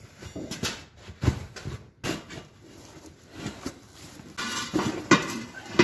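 Tractor tire and steel rim being handled by hand: irregular knocks and thumps, with a stretch of scraping about four and a half seconds in and a sharp knock just after it.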